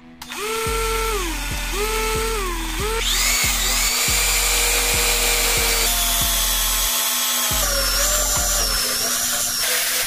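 Electric drill boring through a blue PVC sheet: the motor whine spins up and winds down twice in quick short runs, then runs longer at a steady pitch that shifts a few times. Background music with a steady beat plays underneath.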